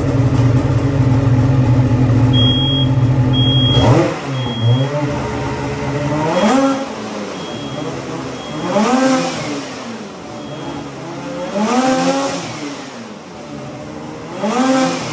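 Ski-Doo Gen5 turbo snowmobile's 850 two-stroke engine, warmed up and unloaded, breathing through a GGB Quiet Can aftermarket exhaust. It runs steadily for about four seconds, then drops back and is revved four times, each rev rising and falling. A short high beep repeats about once a second.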